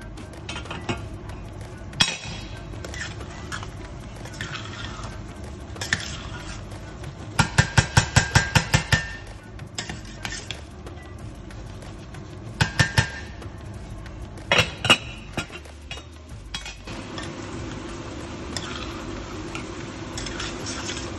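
Metal utensil clinking against a cooking pot: scattered single knocks, a quick run of about eight clinks, then two shorter runs. A steady hum comes in near the end.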